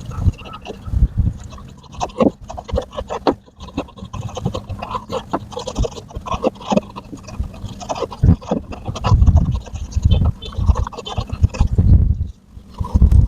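Microfiber towel scrubbing over the small glass lens of a minivan's backup camera, in irregular rubbing strokes with low bumps and knocks from the hand against the car.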